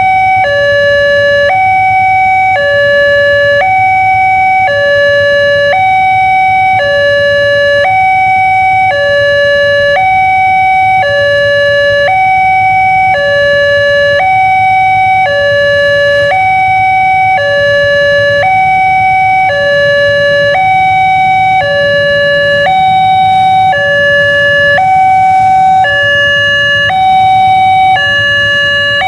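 Railway level-crossing warning alarm sounding from the loudspeaker on the signal post: a loud electronic two-tone signal alternating between a higher and a lower note, about a second each, repeating steadily. It is the warning that a train is approaching and the crossing is closed.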